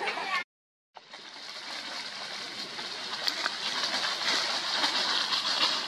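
Dry leaf litter rustling and crackling as macaques scrabble and tussle through it, a continuous crackly rustle that slowly grows louder. It is broken by a half-second dropout to dead silence about half a second in.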